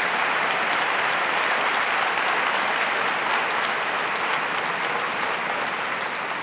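Town hall audience applauding steadily, easing off slightly near the end.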